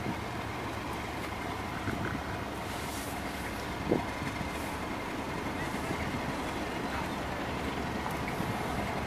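Diesel locomotive engine running steadily, with a single sharp knock about four seconds in.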